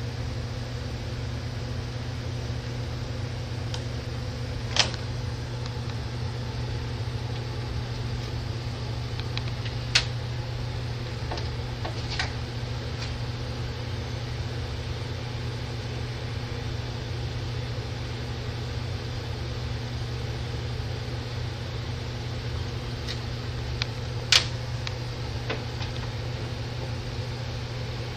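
A steady low mechanical hum with a few short sharp clicks or taps over it, the loudest about three-quarters of the way through.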